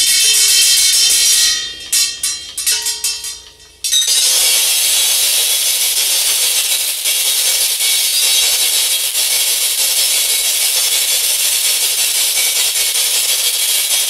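Music: the ending of an experimental indie rock track. Loud, broken, stop-start sound for the first few seconds, then from about four seconds in a steady wash of high hissing noise.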